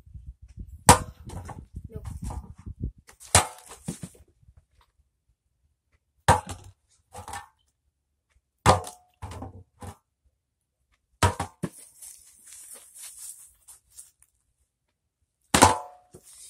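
A water-filled plastic bottle slammed against a metal pot again and again: about eight sharp knocks at uneven gaps, some with a short metallic ring.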